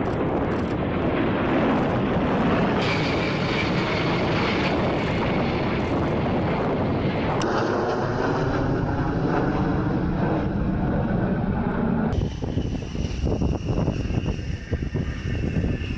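Jet noise from A-10 Thunderbolt II attack jets' twin TF34 turbofan engines as they fly over and land. The sound changes abruptly twice with cuts in the footage, and over the last few seconds a high engine whine sits above the rumble.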